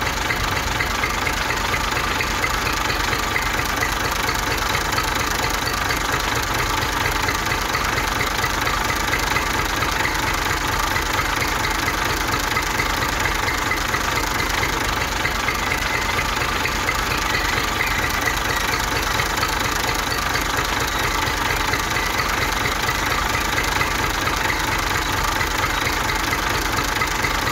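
Engine idling steadily with a fast, even chugging.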